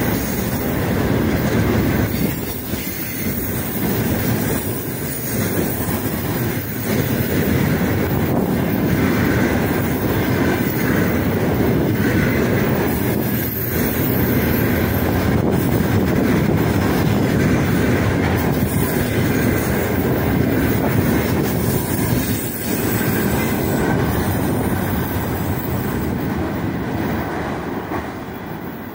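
Loaded container flatcars of a freight train rolling past close by: a steady rumble of steel wheels on rails with a clatter of wheel knocks, fading near the end as the tail of the train goes by.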